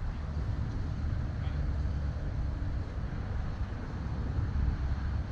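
Narrowboat's engine running steadily underway, a low continuous rumble.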